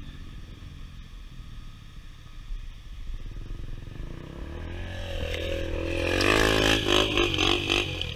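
Dirt bike engine revving hard as it climbs a steep dirt bank, the revs rising and the sound growing much louder about halfway through. Underneath, a motorcycle engine idling steadily.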